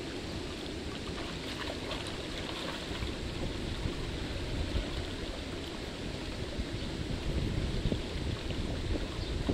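Water splashing as a dog wades through a shallow stream, over the stream's steady flow. Wind rumbles on the microphone, stronger in the second half.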